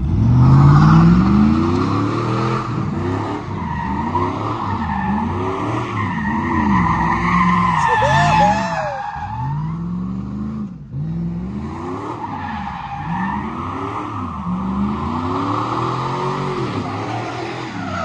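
Pickup truck doing donuts: the engine revs up and down over and over while the rear tires squeal continuously on the pavement. The engine surges hard at the start and briefly lets off about eleven seconds in.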